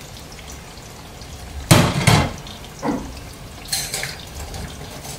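Sliced onions frying in oil in a wok, a steady sizzle while they soften. A few sharp knocks cut across it, the loudest about two seconds in and smaller ones about three and four seconds in.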